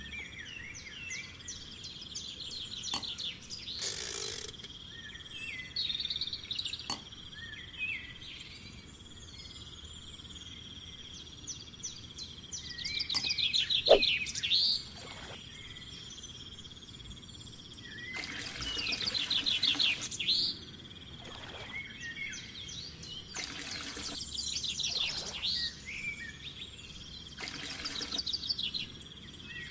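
Outdoor ambience: birds chirping and trilling over and over above a steady, high insect drone, with a few light clicks.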